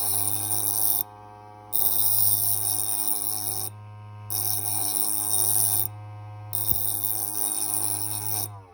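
RX honing machine's motor humming steadily while the tip of a steel dental elevator is pressed against the spinning diamond disc in about four grinding passes of one to two seconds each, the hissing grind breaking off briefly between passes as the dull instrument is sharpened.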